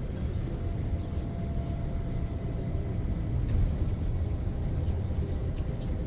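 Steady low rumble of engine and tyre noise heard inside a moving vehicle at highway speed, with a few faint ticks in the second half.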